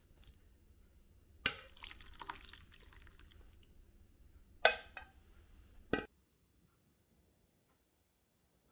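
A few sharp knocks and clinks of things being handled, with a light rustle between them. The loudest knock is about four and a half seconds in, and the sound cuts to dead silence about six seconds in.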